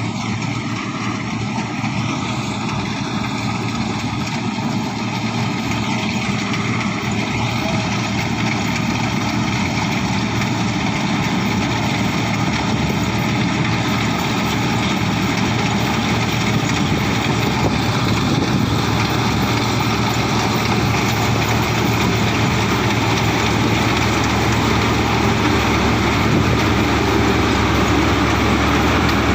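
Rice combine harvester running steadily, its engine and threshing machinery making a continuous noise that grows slightly louder toward the end.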